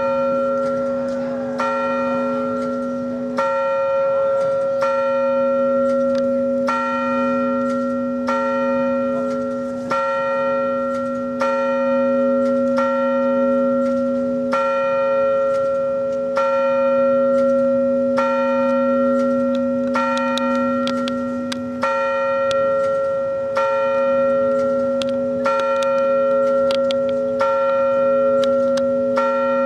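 A 100-year-old bell tolling slowly, about one stroke every one and a half to two seconds, each stroke's hum carrying on into the next.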